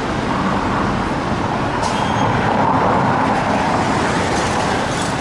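City street traffic noise, a steady rush of passing vehicles that swells louder about two to three seconds in as one goes by.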